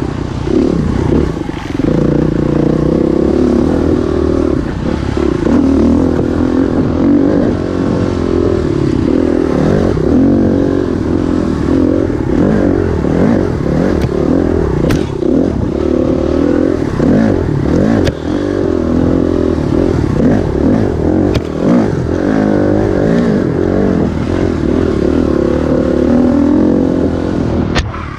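Dirt bike engine running along a rough trail, its revs rising and falling constantly with the throttle, with the bike rattling and a few sharp ticks.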